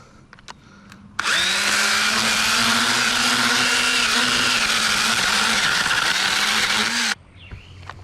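Echo electric pruning saw running for about six seconds. It starts abruptly about a second in and cuts off suddenly, with a steady motor whine that sags slightly near the end.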